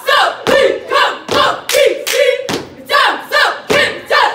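Cheerleaders shouting a cheer in unison, punctuated by sharp stomps and claps in a steady rhythm.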